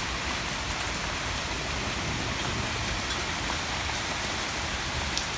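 Steady rain falling on a wet paved patio, an even hiss of drops splashing on the slabs.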